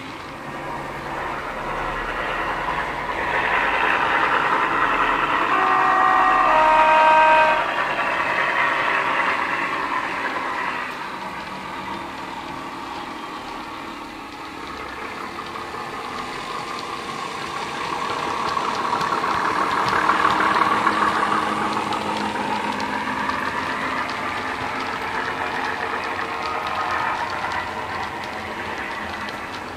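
Class 17 'Clayton' diesel locomotive sound from a DCC sound decoder in a model locomotive, played through sugarcube speakers. The engine sound swells and fades twice as the loco runs past hauling wagons, with a short two-note horn about six seconds in.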